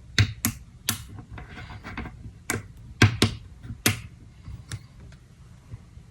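Plastic Wacky Track fidget toy links clicking and snapping as they are twisted: a string of sharp, irregular clicks, the loudest a quick pair about three seconds in, with softer plastic rustling between.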